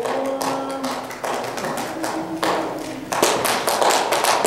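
Rapid, irregular sharp taps and knocks that grow louder and denser about three seconds in, with a few short held tones in the first half.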